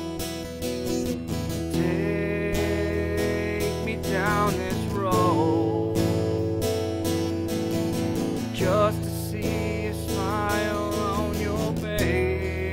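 Acoustic guitar playing chords in an instrumental passage, with a higher melody line that wavers in pitch coming in several times over the chords.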